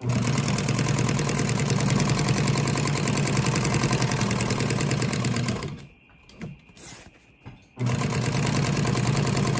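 Industrial sewing machine stitching at speed, a fast even rattle over a low motor hum. It stops after about six seconds and starts again about two seconds later.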